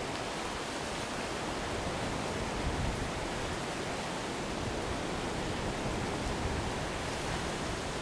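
Steady rushing noise of wind and ocean surf, with wind buffeting the microphone unevenly.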